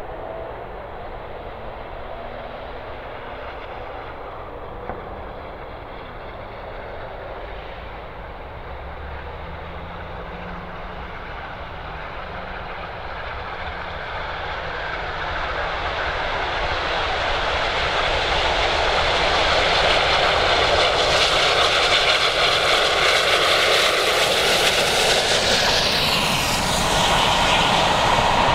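Steam locomotive and train approaching along the line: a distant rumbling rush that grows steadily louder from about halfway through, becoming loud and full near the end as the train nears.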